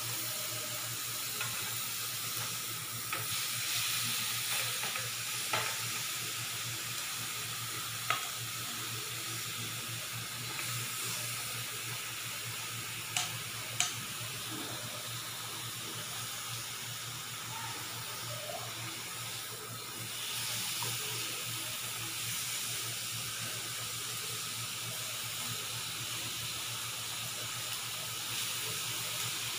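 Chicken pieces sizzling on a ridged grill pan over a portable gas stove: a steady hiss, with a few sharp ticks.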